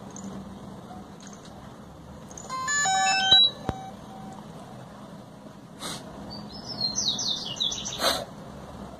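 DJI Mavic Pro powering up: a short tune of stepped beeps plays about two and a half seconds in. Near the end come two light clicks and a quick run of high, falling chirps.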